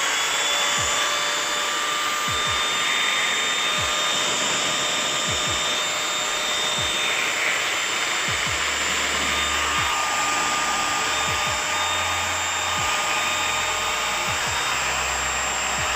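Cumi CPAG 4 1200 W angle grinder running unloaded at full speed with a steady, even whine. This is a test run after an armature repair, and the grinder runs at proper speed without slowing down.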